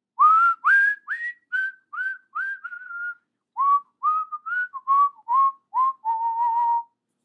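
Whistling of a short tune: about a dozen quick notes, each scooping up into pitch, in two phrases with a brief pause between them, the last note held longer with a slight wobble.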